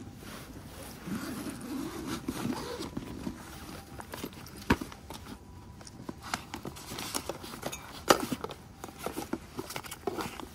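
Nylon fabric rustling as a soft cooler bag is unzipped and packed by hand, with a zipper run in the first few seconds. Sharp clicks and knocks follow as a box and bottles are set inside, two of them louder than the rest.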